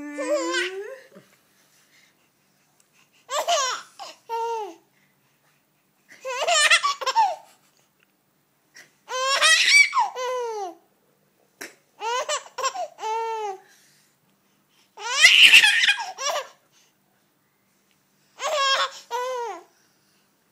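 Baby laughing in about seven short bouts, each a quick run of high laugh pulses lasting a second or so, with silent pauses of one to two seconds between them.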